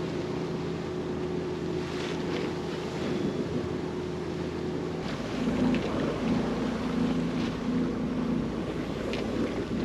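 Sailboat under way: an engine running with a steady hum, wind on the microphone and water noise around the hull. The hum changes about five seconds in.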